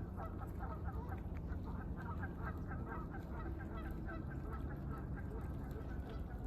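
Birds calling: many short, quick honking calls overlapping, several a second, thinning out after the first few seconds.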